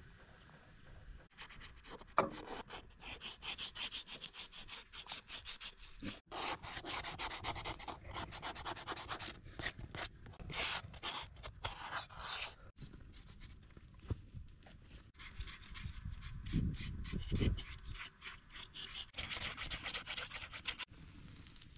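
Fast, repeated scraping strokes on a hard surface, in runs broken by short pauses.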